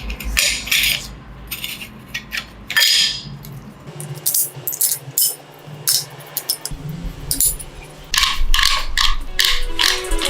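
Irregular metallic clinks and taps of hand tools and small metal parts being handled, with a quicker run of clicks near the end.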